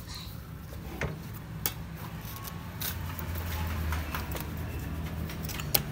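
A few sharp metal clicks and taps from parts being handled on a motorcycle's front fork and drum-brake assembly, spaced a second or so apart, over a low steady hum that comes up about halfway through.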